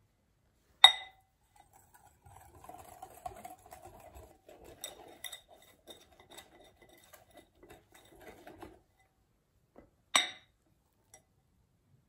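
Wire balloon whisk mixing flour into egg-yolk batter in a glass bowl: soft stirring with light clicks of the wires against the glass. Two sharp, ringing clinks on the glass bowl, one about a second in and one near the end.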